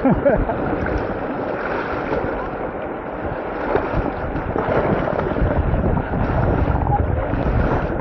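Rushing whitewater of a river rapid, a steady noisy wash, with wind buffeting the microphone.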